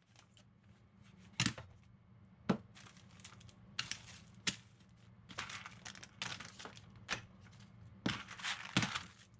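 Paper templates and hand tools being handled on a workbench: scattered sharp clicks and crinkling, scraping rustles, over a faint low hum.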